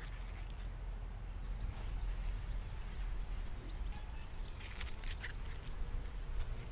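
Wind rumbling on the camera microphone, with a thin steady high-pitched whine from about a second and a half in, and a short run of clicks around five seconds in as the hive frames are worked with a hive tool.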